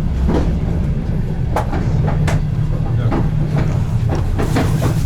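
Passenger train carriage rolling along the track, a steady low rumble with irregular clacks and knocks of the wheels over rail joints and points as the train pulls into the station.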